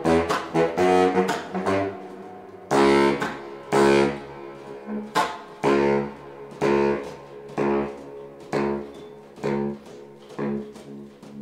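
Solo baritone saxophone playing a rock-style riff of low, sharply attacked notes, accented about once a second.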